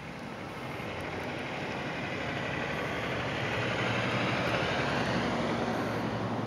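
A car passing on a road covered in about an inch of new snow: its tyre hiss swells to a peak about four seconds in, then starts to fade.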